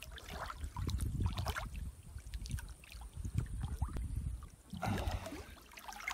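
River water sloshing and lapping around a peacock bass and the hands holding it as it is released, close to the microphone at the water's surface. A louder wash of splashing comes near the end.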